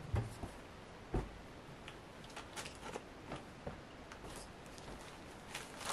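Clothes being handled and set down on a wooden floor: two soft thumps about a second apart near the start, then light fabric rustling and small clicks.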